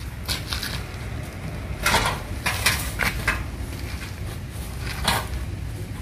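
Knocks and rattles of a two-wheeled steel log cart being wheeled and tipped up against an upright log, a few separate clanks with the loudest about two to three seconds in, over a low steady rumble.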